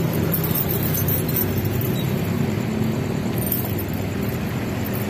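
Road traffic crossing the railway: a diesel dump truck's engine running with a low, steady hum, with cars and motorcycles passing.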